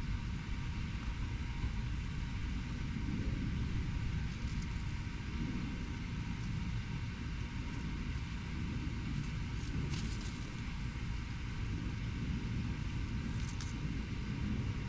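Steady low rumble of urban road traffic, with a few faint, brief high clicks about ten seconds in and again near the end.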